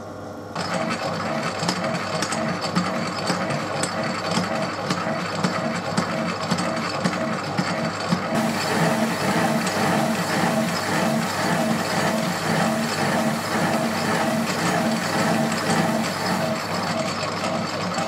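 Myford lathe running slowly, a turning tool taking a light facing cut on a 5-inch gauge locomotive cylinder block spun on an expanding mandrel; a steady, rhythmic mechanical running sound that starts about half a second in and grows brighter partway through.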